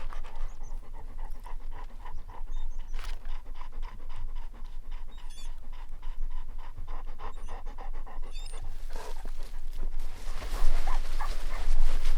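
Pointer dog panting quickly and steadily close by, about four pants a second. The sound grows louder and noisier near the end.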